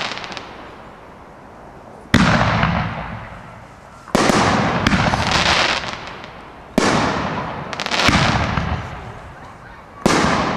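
Fireworks shells bursting overhead: four sharp bangs roughly every two to three seconds, each fading out slowly, some followed by crackling.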